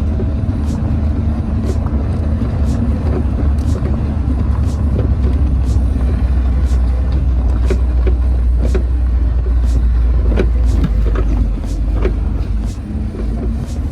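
Mahindra Thar petrol 4x4 driving, a loud steady low rumble of engine and road noise with frequent short knocks and rattles.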